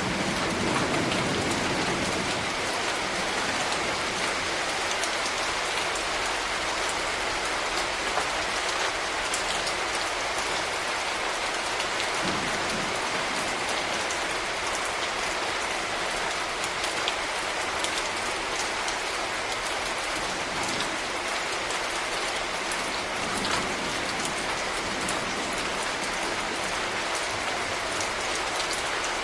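Steady rain falling, an even hiss dotted with the ticks of single drops landing.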